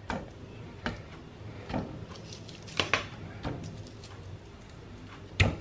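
Chunks of raw beef dropped by hand into a stainless-steel pot: about six soft, irregular thuds and knocks, the sharpest one near the end.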